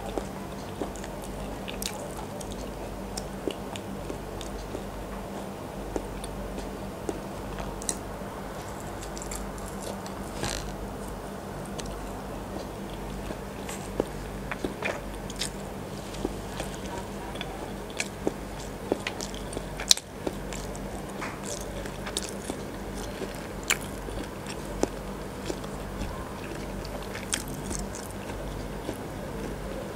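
Close-miked biting and chewing of an incubated chicken egg with a dead embryo inside (Thai khai hang hang), with many small crunchy clicks and one louder click about two-thirds through. A steady low hum runs underneath.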